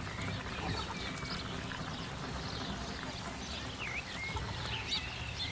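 Evaporated milk being poured into a simmering pan of chicken and pineapple: a steady hiss, with small birds chirping now and then.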